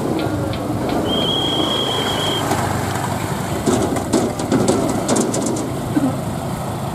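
Motorcycle and scooter engines idling and pulling away over a railway level crossing, a steady mixed traffic noise. A brief high steady tone sounds about a second in, and a run of light clicks and rattles comes in the middle.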